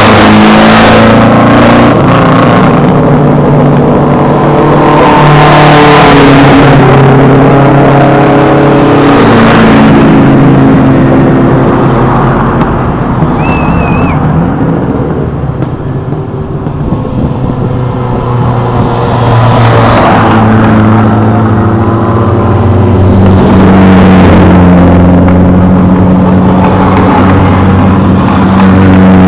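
Hillclimb competition cars at full throttle. One car is pulling away at the start. Then a Renault Clio is heard climbing through the bends towards the listener, its engine revving up and dropping back at each gear change, the sound fading and swelling with the turns and loudest as it arrives near the end.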